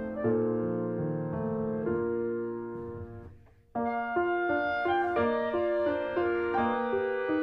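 Calm piano background music. It fades almost out a little past the middle, then comes back suddenly with a new phrase of repeated notes.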